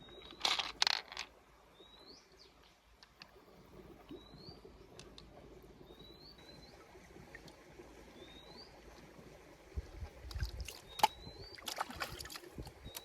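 A bird repeating a short, high, rising chirp about every one and a half to two seconds. A burst of sharp clicks and clatter comes about half a second in, and another near the end.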